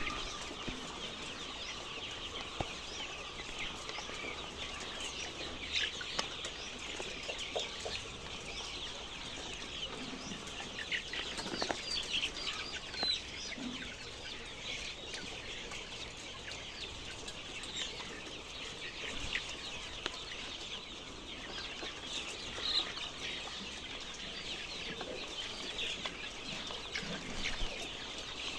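A flock of chickens clucking and chirping, many short calls overlapping over a steady background hiss.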